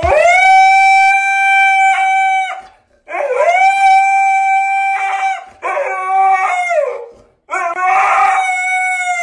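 A dog howling: four long, drawn-out howls with short pauses between them, each sliding up at the start, holding a steady pitch and dropping away at the end.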